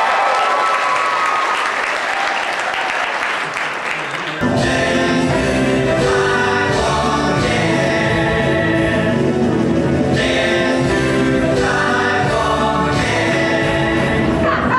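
Audience applause, then about four seconds in a stage musical number starts suddenly: loud band music with a strong bass, and the cast singing together as a chorus.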